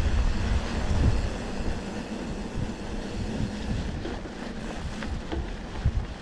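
Wind buffeting an action camera's microphone while riding a bicycle along a trail, with tyre and ground rumble that is heavier for the first second or so. A few sharp clicks and rattles from the bike come in the second half.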